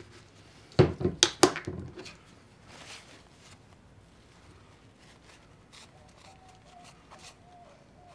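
Small parts and tools handled on a workbench: a quick cluster of loud clacks about a second in, then faint scattered small clicks.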